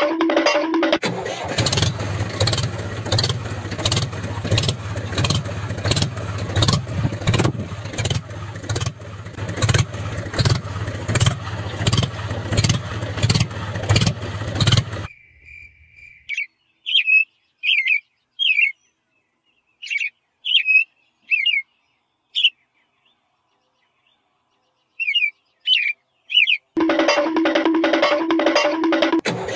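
Tractor engine sound running with a regular chug of a few beats a second, which stops about halfway through. In the gap only short bird chirps are heard. The engine sound starts up again near the end.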